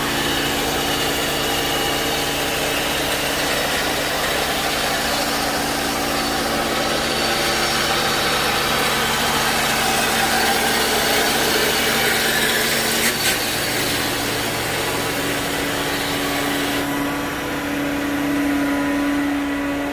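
Concrete pump truck's engine running steadily under a hiss. Near the end the hiss drops away and a low hum grows louder.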